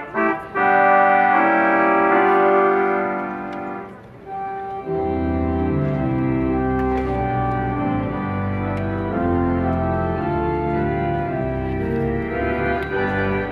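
Spreckels outdoor pipe organ playing sustained chords. A loud held chord dies away about four seconds in, then deep pedal bass notes come in under a run of changing chords.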